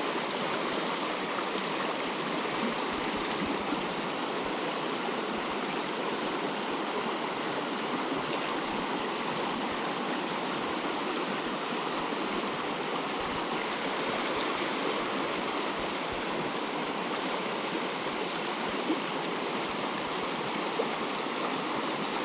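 Mountain stream water rushing steadily, an even unbroken rush with no change throughout.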